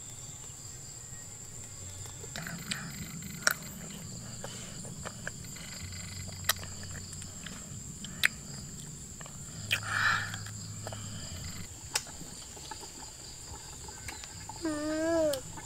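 Insects chirring with a steady high-pitched drone, over scattered light clicks and taps. Near the end there is a brief wavering vocal sound.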